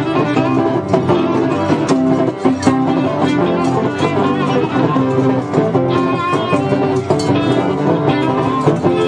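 Cretan folk dance music on plucked and bowed string instruments, typically laouto and lyra, playing steadily without a break.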